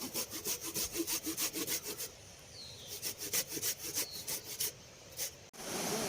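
Hand saw cutting through wood with quick back-and-forth strokes, in two runs with a short pause about two seconds in. Near the end it gives way abruptly to a steady rushing of river water.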